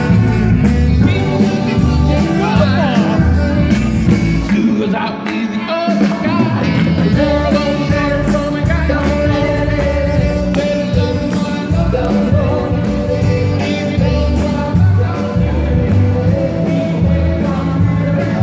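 Live band playing a nostalgic dance tune with a lead singer, loud, over a steady bass beat; the bass drops away briefly about five seconds in.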